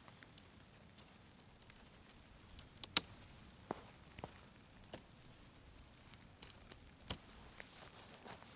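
Scattered sharp clicks and knocks a second or more apart, the loudest about three seconds in, against a faint hiss.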